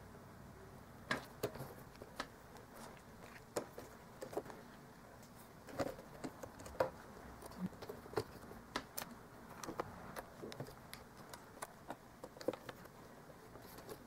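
Faint, irregular clicks and taps of a small screwdriver driving the bottom-cover screws back into a white unibody MacBook, with hands shifting on the plastic cover.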